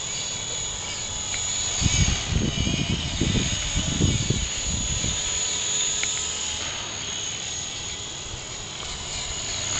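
Walkera V400D02 electric radio-controlled helicopter in flight: a steady high-pitched whine of its motor and rotor. Gusts of wind buffet the microphone in low rumbles, mostly in the first half.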